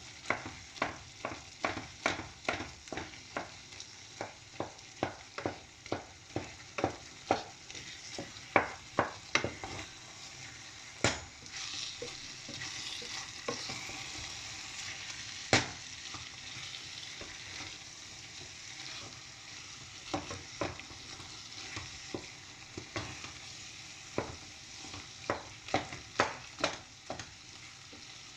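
A spoon mashing and stirring yam pottage in a cooking pot, knocking against the pot about two or three times a second. In a pause in the middle the pot sizzles, with two single louder knocks, then the rapid mashing strokes start again.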